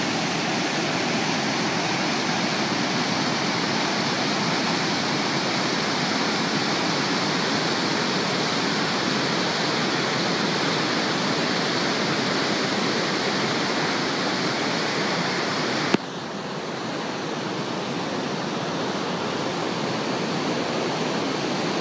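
Brown river in spate rushing through rapids: a loud, steady rush of white water. About three-quarters of the way through a sharp click comes and the rush drops quieter, then slowly builds back.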